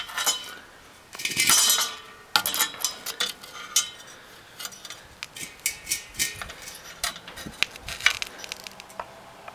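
Small metallic clicks, taps and scrapes as a copper propane tube is handled and pushed into position against a small engine's metal parts, with a longer rasping scrape about a second in.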